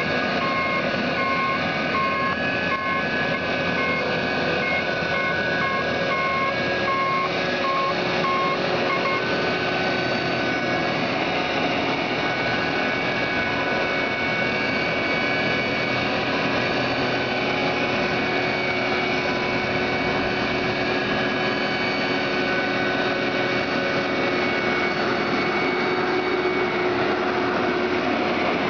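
Tractor engine running steadily with the hydraulically driven flail mower head of an Orsi Royal 550 reach-arm hedge and verge mower working in roadside reeds. A vehicle reversing alarm beeps in a regular run for roughly the first nine seconds, then stops.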